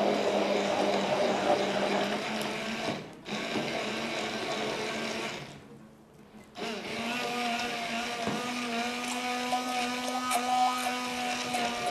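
Handheld stick blender running in a glass bowl of carrot cake batter, blending in the flour and breaking the grated carrot down finer. It dips briefly about three seconds in, stops for about a second just past halfway, then starts again and runs steadily.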